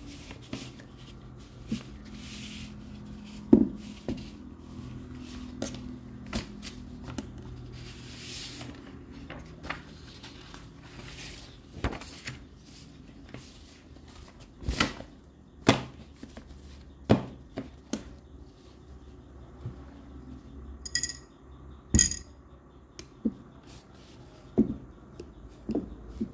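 Objects being handled on a desk: irregular clicks and knocks as a tablet on its stand and other things are moved about, with short rustles of paper sheets being laid out. Two brief ringing clinks about a second apart come late on.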